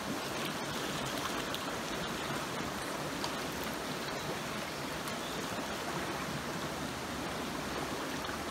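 Steady rushing of a shallow river's flowing water.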